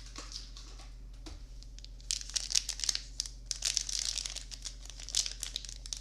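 Foil wrapper of a Magic: The Gathering booster pack crinkling as it is handled and torn open, starting about two seconds in and going on as dense, irregular crackling.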